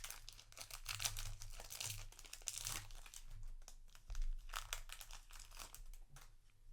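Plastic-foil trading card booster pack crinkling and tearing as it is opened, in a run of irregular rustles that ease off about halfway and come back briefly.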